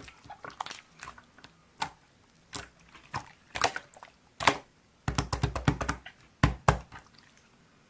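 Scattered light clicks and taps, with a quick run of them about five seconds in.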